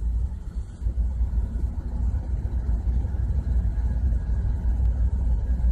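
Steady low rumble of ship's machinery running in the background, with no distinct strikes or changes.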